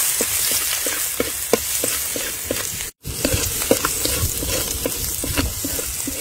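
Chopped garlic and chili sizzling in hot oil in a large pan, stirred with a metal spatula that taps and scrapes the pan about three times a second. The sound cuts out for an instant about halfway through.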